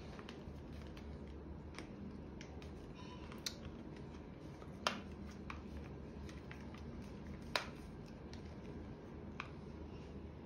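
Faint handling noise with a few sharp plastic clicks as the folding arms of a Moza Mini MX smartphone gimbal are unfolded; the two loudest clicks come about five and seven and a half seconds in.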